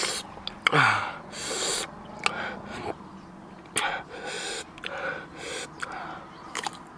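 A man eating sour green mango dipped in chili salt, drawing several sharp hissing breaths through his mouth with lip smacks and clicks in between, the reaction to the sour, spicy mouthful. A short falling grunt comes about a second in.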